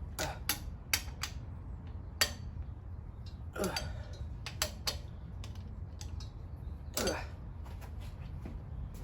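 Irregular metallic clicks and clanks of hand tools and engine parts being handled during an engine teardown, with two louder clanks about three and a half and seven seconds in.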